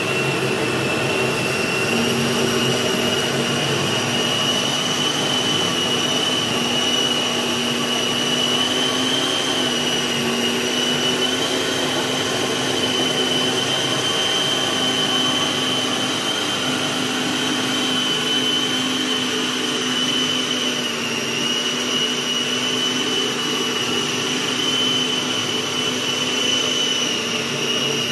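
Kenwood food processor running steadily with a high motor whine, its blade grinding a wet meat-and-spice mixture.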